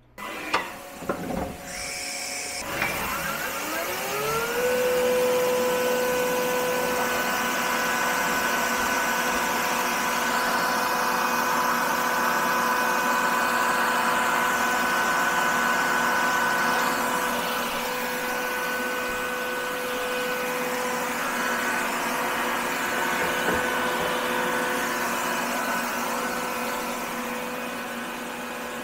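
A few clicks, then a CNC milling machine's spindle spins up with a rising whine about three seconds in. It then runs at steady speed with a steady high whine over a hiss, holding a tiny end mill to machine small UHMW plastic parts.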